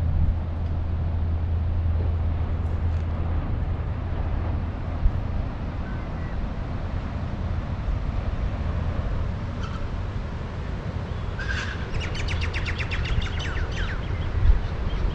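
Steady low outdoor rumble with a hiss. About eleven seconds in, a bird gives a rapid trilled call of quickly repeated notes lasting about two seconds.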